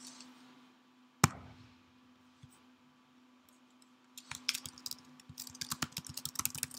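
Computer keyboard and clicks: one sharp click about a second in, a quiet stretch, then a quick run of keystrokes for the last two and a half seconds as a search term is typed.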